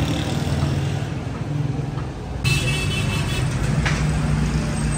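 Street traffic: a motor vehicle's engine running close by with a steady low hum. A higher-pitched tone cuts in about halfway through and lasts over a second.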